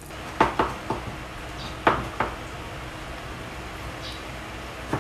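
Kitchen knife cutting a raw squash on a plastic cutting board: several sharp knocks of the blade on the board in the first two seconds or so, then fainter, scattered cutting.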